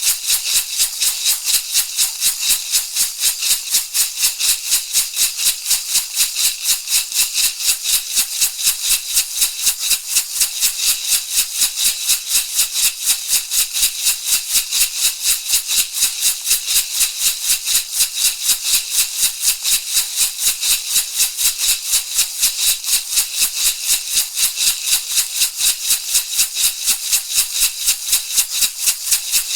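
Shamanic rattle shaken in a steady, fast, even rhythm of several crisp, hissing strokes a second.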